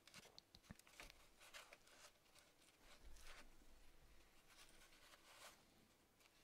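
Faint scraping and dabbing as hive-repair putty is pressed and worked into holes in a beehive box with a gloved hand and a small spatula: a run of short, soft scratchy strokes.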